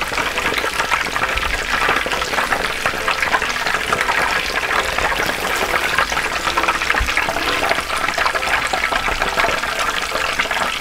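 Frozen cheese balls deep-frying in a pot of hot oil, the oil sizzling and crackling steadily.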